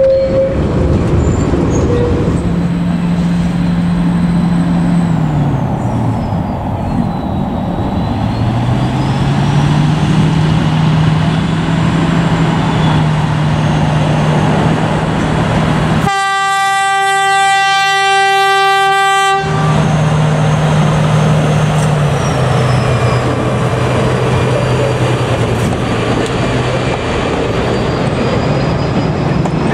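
Diesel locomotive DSA273 running past with a steady engine note that drops and then climbs in pitch twice. Just past the middle, one horn blast of about three seconds starts and stops sharply. Near the end the carriages roll by on the track.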